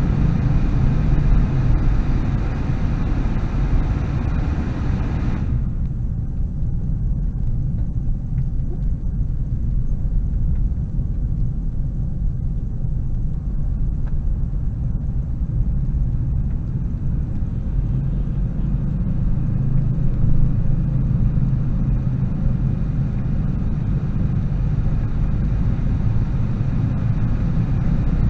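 Steady low rumble of a car's engine and tyres heard from inside the cabin while driving. A hiss above the rumble cuts out abruptly about five seconds in, leaving only the low rumble.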